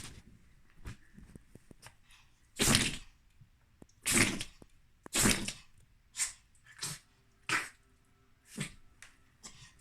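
Small dog sneezing about eight times in a row, short sharp sneezes about a second apart. The first three are the loudest and the later ones are weaker.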